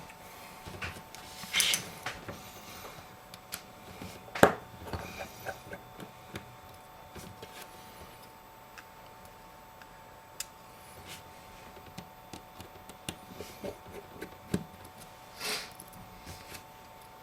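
Small scattered clicks and taps of a precision screwdriver and tweezers on the tiny screws and metal brackets inside an opened iPhone 5, with a sharper click about four seconds in and a couple of brief scrapes. A faint steady hum runs underneath.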